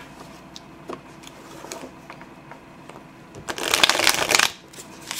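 Tarot deck being shuffled by hand: light taps and handling of the cards, then a fast, dense flutter of cards for about a second near the end. An easy, soft shuffle.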